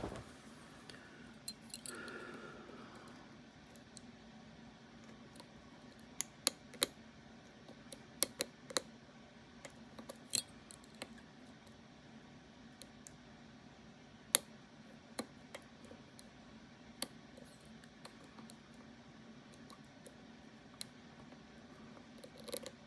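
Sharp metallic clicks and clinks at irregular intervals, thickest about six to eleven seconds in: metal lock parts and tools of an Assa Twin 6000 lock being handled, over a faint steady hum.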